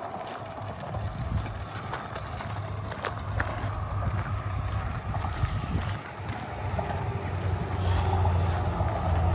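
Wind buffeting the microphone in a steady low rumble, growing stronger near the end, with scattered light clicks.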